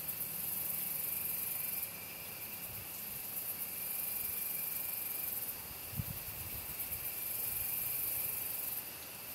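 Evening insect chorus, crickets or katydids, a high-pitched buzzing that comes and goes in spells of about two seconds. A soft low thump about six seconds in.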